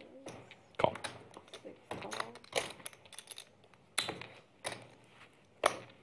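Poker chips clicking as players handle and stack them at the table: about half a dozen sharp, separate clicks at uneven intervals, with faint chatter around the table.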